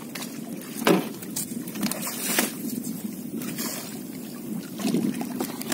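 Sea water splashing and sloshing against a boat's hull as a large netted ray struggles alongside, with a couple of sharper splashing hits about one and two and a half seconds in.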